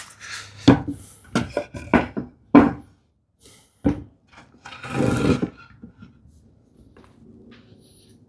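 Poplar boards being handled on a workbench: a run of sharp wooden knocks and clatters over the first three seconds and one more at about four seconds, then a short rubbing sound about five seconds in.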